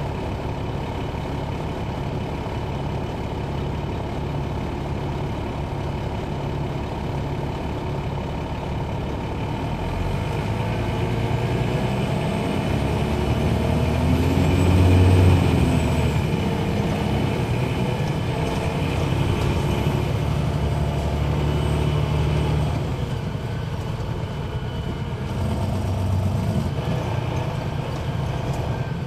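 Detroit Diesel Series 60 diesel engine of a 2001 MCI D4000 coach running steadily at low revs, then pulling away: about ten seconds in the engine note climbs, loudest about halfway through. It holds higher for several seconds, drops off, and swells briefly again near the end.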